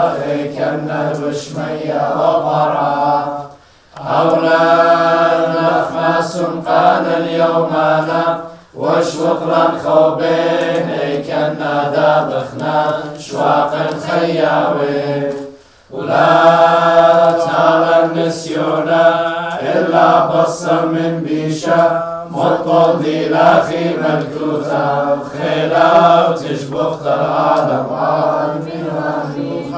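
A group of men's and young people's voices chanting a church hymn together, phrase after phrase, breaking off briefly three times between phrases.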